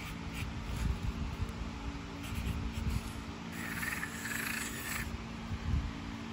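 A Sharpie marker scratching on corrugated cardboard. A few short writing strokes come first, then one longer stroke from about three and a half to five seconds in as a circle is drawn.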